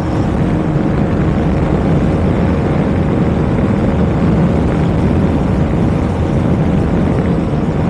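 Steady rush of wind on the microphone over a KTM Duke 200's single-cylinder engine running flat out near its top speed.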